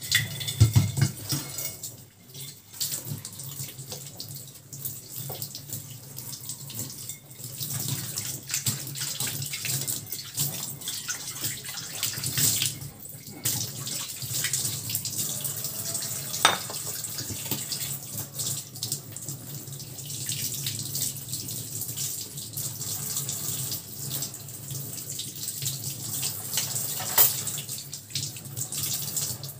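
Tap water running into a stainless-steel kitchen sink while dishes are washed and rinsed by hand, with a few sharp clinks of dishware.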